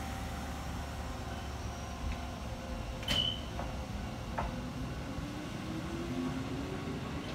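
Electric commuter train standing at a station platform over a steady low rumble: a sharp clunk with a short high beep about three seconds in, then a faint whine rising in pitch as the train starts to move off.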